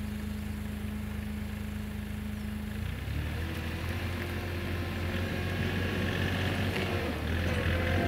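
Hitachi ZW40 wheel loader's diesel engine idling steadily, then revved up about three seconds in and growing steadily louder as the machine drives closer.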